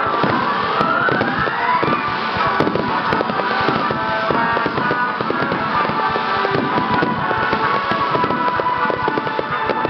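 Star mine fireworks barrage: a continuous dense run of shell bursts and crackling, with a whistle rising in pitch over the first two seconds.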